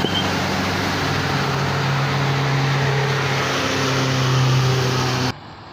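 Bus diesel engine pulling hard up a steep climb, a loud steady drone that steps up slightly in pitch about four seconds in; the sound cuts off abruptly near the end.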